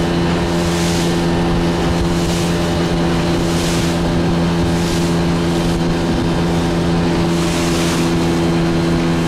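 Small motorboat's engine running at a steady cruising speed, one unchanging hum, with wind and rushing water against the hull that swell every second or so.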